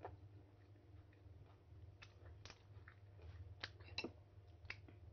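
Someone chewing mango slices: scattered short crunches and mouth clicks, the sharpest about four seconds in, over a low steady hum.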